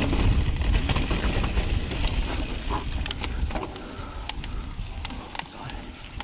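2018 Intense Carbine 29 mountain bike riding a dirt trail: a low rumble of wind and tyre noise on the camera that fades as the bike slows, with scattered sharp clicks and rattles from the bike starting about halfway through.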